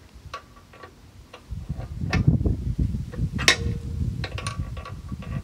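Ratchet socket wrench clicking in short, irregular runs as it turns the belt-tensioner bolt that pushes a plate compactor's engine back. A low rumble runs underneath from about a second and a half in.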